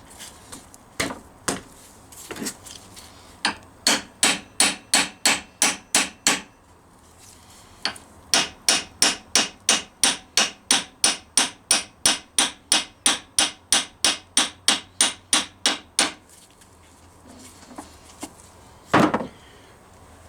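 Hammer tapping the differential drive flange back onto the pinion shaft of a Rover P6 V8: a run of about ten even blows, a short pause, then a longer run of about thirty at three to four a second, and one heavier knock near the end.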